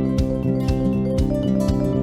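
Music with a steady beat of about two beats a second over sustained chords.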